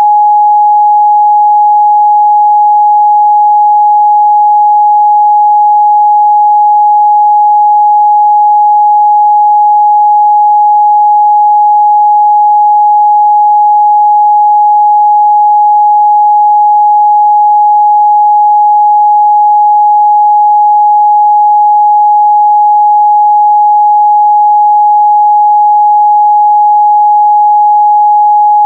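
A pure 836 Hz sine-wave test tone, held steady and loud at one pitch with nothing else.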